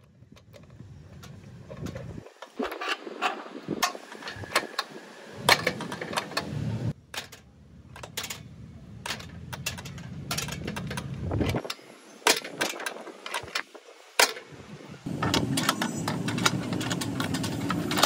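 Brass padlock and steel gate latch being handled: repeated metallic clicks, clinks and rattles as the padlock is unlocked, unhooked and hung back on and the latch handle is worked, over a low background rumble.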